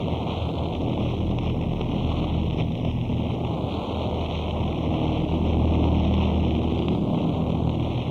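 Harsh noise music: a dense, unbroken wall of static, heavy rumble underneath and hiss above, holding steady with only a slight swell in loudness past the middle.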